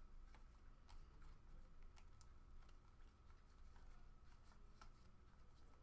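Near silence with faint, irregular light clicks and ticks of trading cards being handled and flipped through a pack, over a faint steady high hum.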